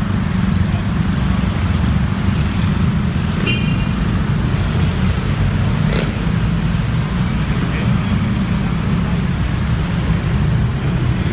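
Motor traffic heard while riding a motorcycle through slow city traffic: a steady low rumble of engines and road noise.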